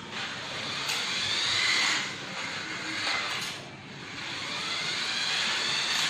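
Small electric motor of a toy remote-control LaFerrari car whining as it drives over a tiled floor, with a high whine that swells and fades several times as the car speeds up and slows.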